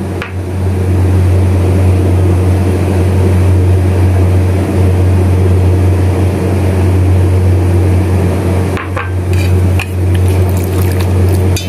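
A loud, steady low hum, with a few light knocks about nine seconds in and again near the end.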